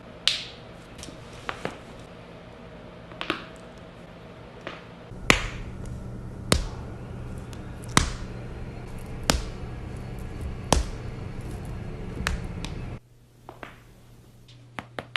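A series of sharp clicks and cracks from chiropractic adjustments. A few lighter ones come in the first few seconds, then six louder ones about a second and a half apart over a steady low hum, which drops away near the end.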